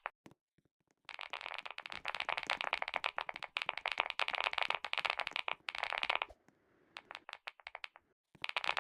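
Close-up cream being worked and squished, giving a dense run of fine crackling clicks from about a second in until about six seconds, then scattered clicks and another short crackly run near the end.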